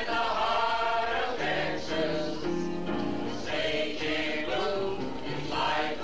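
A group of voices singing a song together in chorus, holding long notes that step from pitch to pitch.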